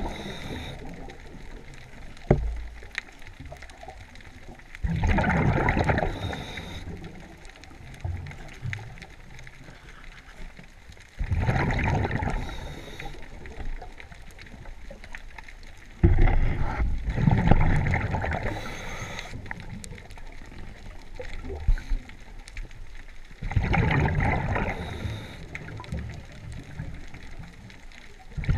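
Scuba diver breathing through a regulator underwater: a surge of exhaled bubbles rumbling and gurgling about every six seconds, with a softer hiss between, and a couple of sharp knocks.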